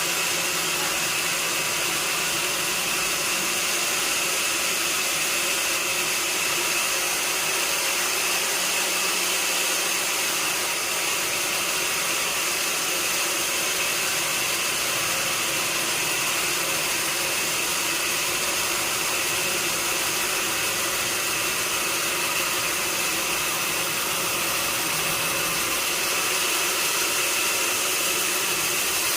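Sawmill saw running steadily, a constant noisy hiss with a steady high whine over it and no change in level.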